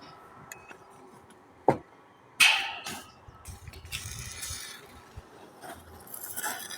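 Scattered knocks and clinks of steel parts being handled: a sharp knock about two seconds in, then a louder clank that rings briefly, with softer scraping afterwards.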